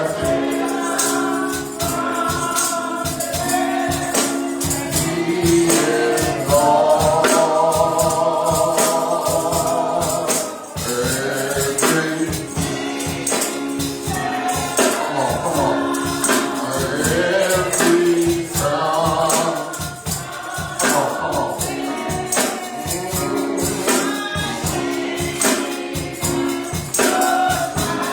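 Gospel music: a choir singing with a tambourine shaken and struck in a quick, steady rhythm.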